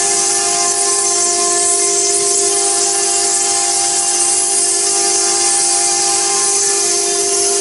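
CNC stone router cutting marble: the spindle gives a steady whine of several tones over a loud, even hiss from the bit grinding the stone.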